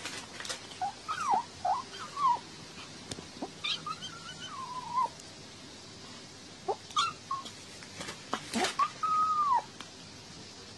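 Kitten making a run of short, high, bending mews and murmurs while eating dry kibble, with clicks of chewing between them. The longest, arched call near the end sounds like 'okaka~'.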